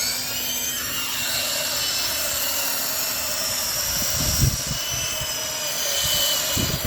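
Toy RC helicopter's motor and rotors spinning up with a rising whine over the first second, then running steadily at a high whine. A few low thumps come partway through and near the end.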